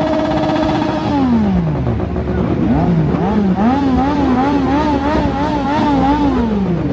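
Sport motorcycle engine being revved hard while stationary. It is held at high revs, let fall about a second in, then blipped up and down in quick pulses, two or three a second, before dropping back near the end.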